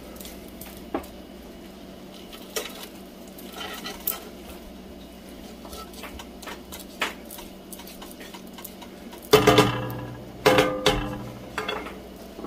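Light taps and clicks in a skillet as lobster meat is moved around the pan. About nine and a half and ten and a half seconds in come two louder spells of clattering and scraping as a wooden spatula works against the pan.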